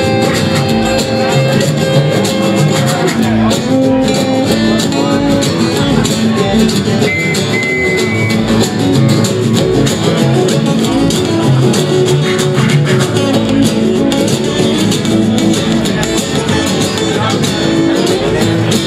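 A live roots string band playing a song: a strummed acoustic guitar and a banjo over a steady beat. A washboard scraped alongside and an upright bass plucking the low pulse.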